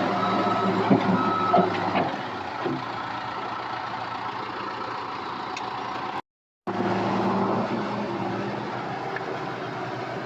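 Excavator engine running steadily as the machine travels, its travel alarm beeping in the first second or so, with a couple of short knocks about a second in. The sound drops out completely for a moment a little after six seconds in.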